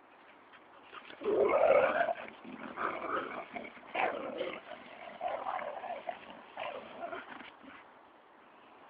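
Two dogs, a springer spaniel and a German shorthaired pointer, making noise as they play-chase. It is an irregular run of dog sounds starting about a second in and dying away near the end, loudest at the start.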